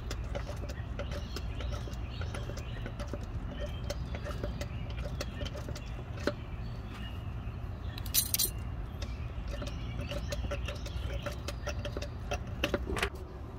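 Hand-operated fluid transfer pump squeaking and clicking with each stroke as gear oil is pushed through a hose into a manual transmission's fill hole, over a steady low hum. A brief hiss comes about eight seconds in.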